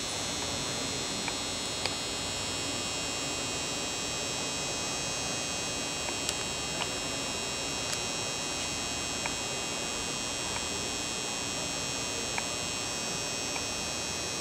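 Steady electrical hum with a high, even whine, and a few faint ticks scattered through it.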